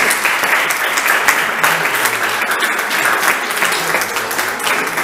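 Audience applauding, a dense crackle of many hands clapping at once.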